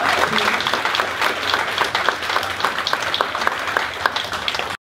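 Audience applauding, many hands clapping at once; it cuts off abruptly near the end.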